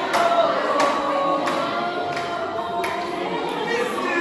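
A group of voices singing together in held notes.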